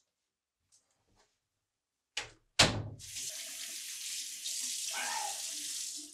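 Two sharp knocks, the second louder, then a bathroom sink faucet turned on and running steadily into the basin as hands are washed under the stream.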